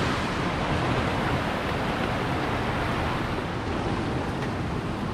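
Steady rush of a rocky river's water flowing over stones.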